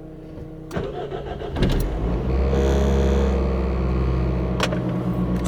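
Toyota Echo's 1.5-litre four-cylinder engine cranking briefly, catching about a second and a half in, then settling into a steady high idle near 1800 RPM. This is the engine's first cold start after its throttle body and idle air control valve were cleaned.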